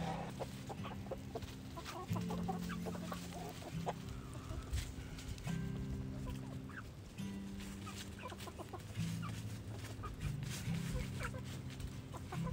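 Chickens clucking in short, scattered calls over background music, which holds low notes that change every second or two.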